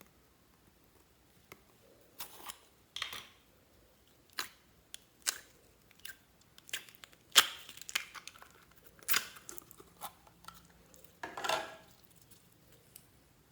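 Slime being squished and stretched by hand, making irregular sticky pops, clicks and squelches, with a few longer squishes.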